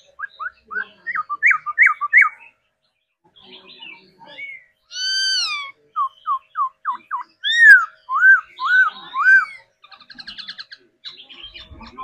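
Caged black-throated laughingthrush singing. A run of quick rising whistled notes comes first, then a long falling whistle about five seconds in. Louder slurred whistles follow, and a fast rattling trill comes near the end.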